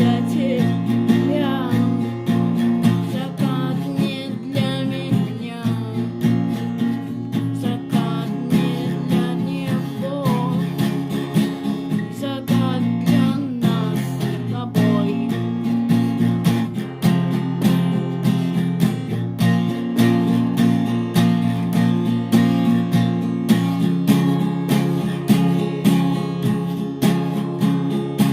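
Band music led by a strummed acoustic guitar, with regular strokes and a melody line above it.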